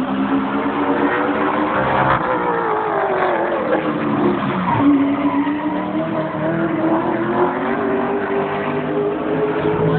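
Several race car engines running at speed on a short oval. The pitch drops for a few seconds from about two seconds in, then climbs slowly again as they get back on the throttle.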